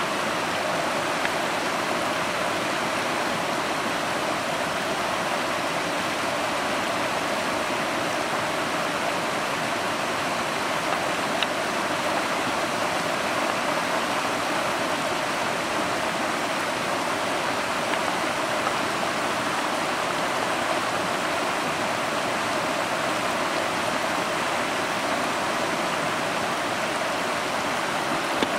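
Steady rushing of water in a shallow rocky stream, with a faint click about midway and another near the end.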